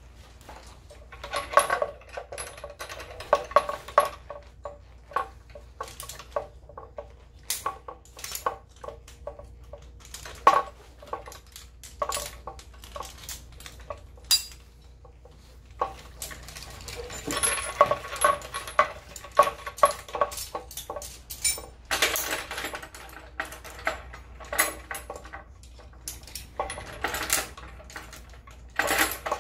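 Steel carabiners, rings and chain links clinking and jangling as a rope is rigged onto anchor hardware, in irregular clusters of sharp metal clicks with short quieter spells between.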